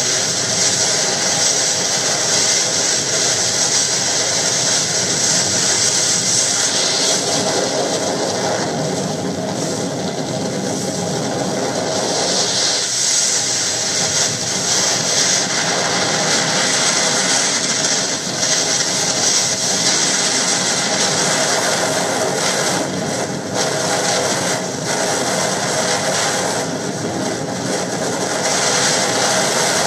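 Boat under way: its engine running steadily beneath a loud rush of wind and water, with wind buffeting the microphone unevenly in the later part.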